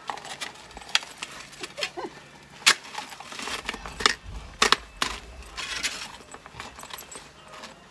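Metal shovel blade chopping and scraping into crusty, icy snow: a string of sharp, crunching strikes at uneven intervals, the loudest about two and a half seconds in.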